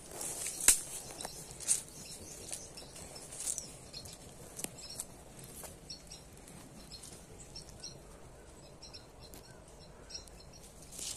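Rustling and crackling of dry leaves and brush as someone walks through vegetation, loudest in the first few seconds. Faint bird chirps, short and repeated, from about four seconds in.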